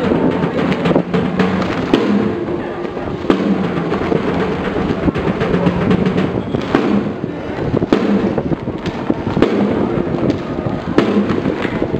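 Band music with drumming: held low notes under frequent sharp drum strokes.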